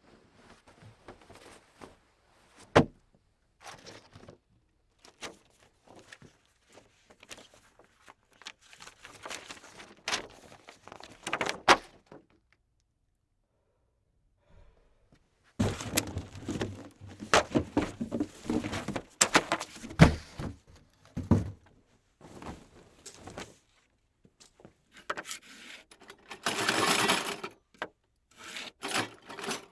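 A series of separate short foley sound effects: sharp knocks and clicks, and stretches of rough scratching or rubbing noise, with pauses between them and a silent gap about halfway through.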